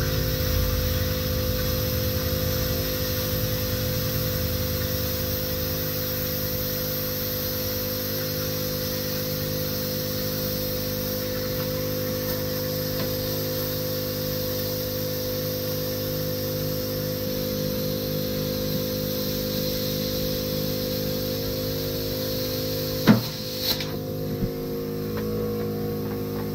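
Plasma cutter with a built-in air compressor running during a freehand cut through car body sheet metal: a steady hum with hiss over it. A sharp clack about 23 seconds in, after which the high hiss falls away.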